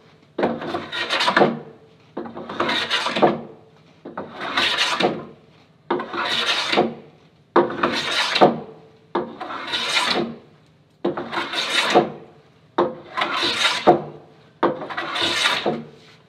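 Metal hand plane cutting shavings from a glued-laminated wood board in nine long push strokes, about one every two seconds, each a rasping hiss with a sharp start. The strokes are taking the high spots off the board to flatten it.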